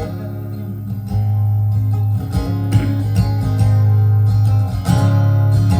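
Acoustic guitar strummed and picked at a slow ballad tempo, with chords ringing on over a sustained low bass note. An instrumental passage without singing.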